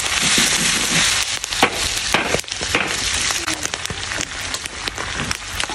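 Corn kernels and vegetables sizzling in a large wok over a wood fire while being stirred, with many sharp crackles and pops throughout.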